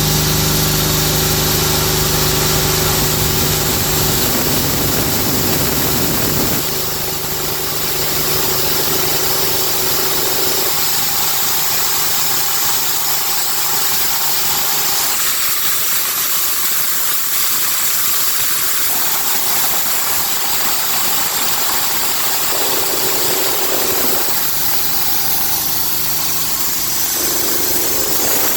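Hatlapa V200 marine piston air compressor running steadily on a test bench, a loud, even mechanical drone with a low hum that thins out about six and a half seconds in.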